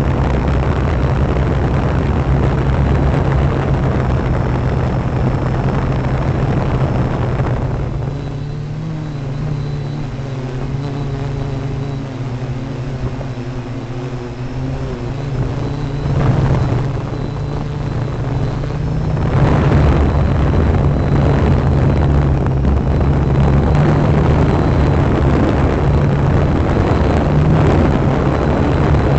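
Drone's motors and propellers buzzing, with a rushing air noise over a steady low hum. From about 8 to 19 seconds the rushing drops away and a steadier motor whine shows, then the rushing comes back louder.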